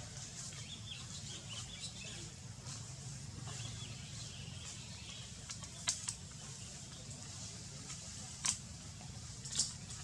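Outdoor ambience: a steady low rumble with faint high chirps, and a few sharp clicks in the second half.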